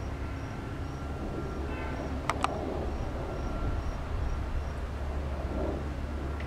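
Backyard ambience: a steady low rumble with a faint high chirp repeating a couple of times a second, and two sharp clicks close together about two and a half seconds in.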